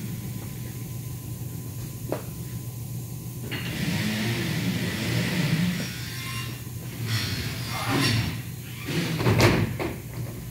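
Aluminium window frames being handled, knocking and clattering several times in the second half, the loudest knock near the end, over a steady low workshop hum. A single click comes about two seconds in, and a stretch of hiss follows in the middle.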